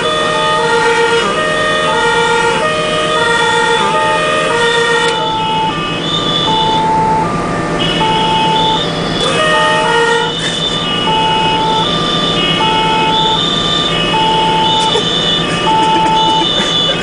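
German two-tone fire-engine sirens (Martinshorn) sounding. Two sirens run out of step for the first few seconds, then one carries on alone, each tone held a little under a second. Under them is the steady drone of the fire engine's diesel, heard from inside the cab.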